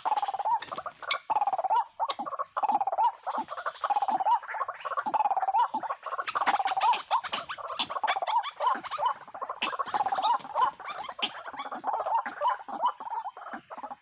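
White-breasted waterhens calling, a rapid repeated croaking 'ruak-ruak' phrase over and over. From about six seconds in, sharp rustling and wing-flapping join it as a bird struggles at the snare.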